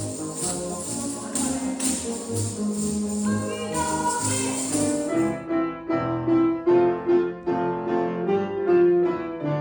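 Instrumental music with a tambourine jingling in time for about the first five seconds. The tambourine then stops and pitched notes carry on in a steady beat.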